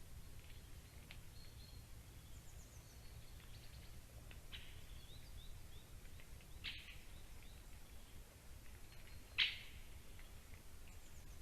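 Faint, scattered chirps of small birds over a steady low rumble, with a few brief, sharper bird calls; the loudest comes about nine seconds in.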